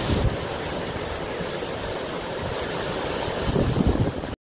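Muddy flash-flood water pouring over a rocky ledge in a waterfall, a steady rushing noise, with wind buffeting the microphone near the start and again near the end. It cuts off suddenly just before the end.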